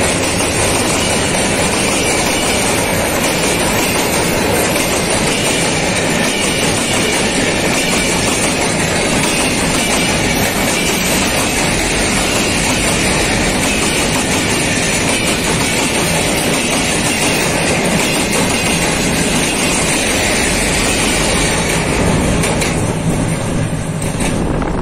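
Express passenger train passing at speed over a railway bridge: a steady loud rush of wheels on rails and coaches rolling by, thinning out near the end as the last coaches go past.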